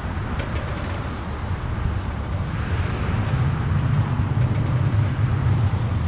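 Strong Santa Ana wind gusting through a pine tree, a steady rush through the needles with heavy low wind buffeting on the microphone that grows stronger about halfway through.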